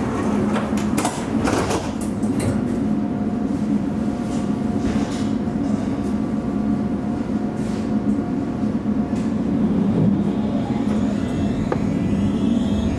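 Alstom Citadis tram standing with a steady low hum and a constant tone from its onboard equipment, with a few light clicks early on. About eleven seconds in, rising whines start as the traction motors take power and the tram begins to pull away.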